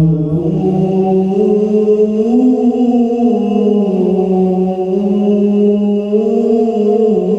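A male Quran reciter holding one long melismatic note in tilawah style, the pitch turning slowly up and down, sung through a PA sound system with a tap-delay echo effect on the vocal.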